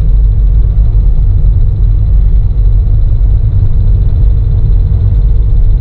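A car driving: a steady low rumble of engine and road noise, unchanging throughout.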